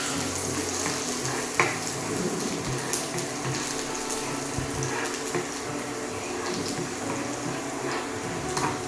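Minced garlic sizzling steadily in hot oil in a pan on a high flame, with a few light clicks.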